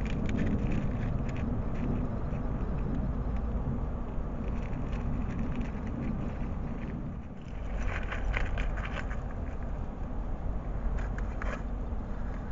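Hedgehog feeding and moving about on dry leaf litter and bark chips: scattered small crackles and clicks, busiest a little past halfway, over a steady low rumble.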